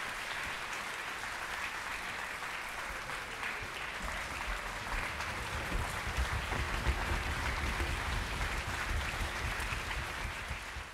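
Concert audience applauding steadily, a dense even clapping, with a low rumble underneath from about four seconds in.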